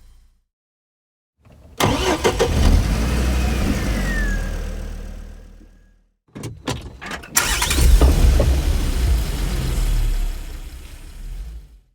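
A car engine being cranked by its starter without starting, in two attempts: one lasting about four seconds and fading out, then a few short stabs at the key followed by another long crank of about four seconds.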